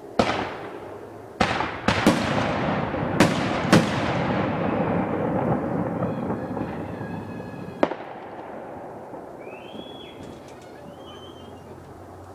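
Consumer fireworks going off: a string of sharp bangs in the first four seconds with crackling in between, one last bang about eight seconds in, then the crackle dies away.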